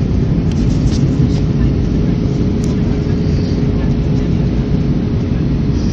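Steady in-flight cabin noise of an Airbus A320 heard from a window seat: a loud, even low rumble with a constant hum-like tone running through it. A few light clicks sound in the first seconds and once near the middle.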